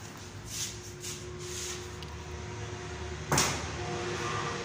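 A single sharp knock about three seconds in, over faint background noise.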